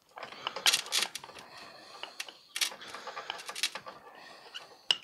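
Pliers gripping and twisting bonsai wire to tie a tree down in its pot: an uneven run of scraping rasps and clicks, with a few sharper clicks.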